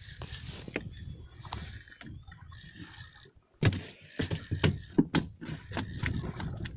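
Fishing reel winding line in against a hooked fish, a whirring, mechanical sound, with a run of sharp knocks and clatter from about halfway through.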